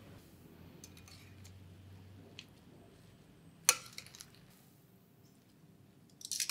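Stainless steel tongs tossing dressed lettuce in a glass bowl: a few soft clicks and leafy rustles, one sharp clink of metal against glass a little past halfway, and a quick cluster of crisp rustles and clicks near the end.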